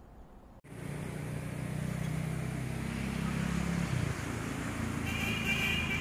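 A motor vehicle's engine hum, coming in about half a second in and dropping away about four seconds in, over a steady background of traffic noise.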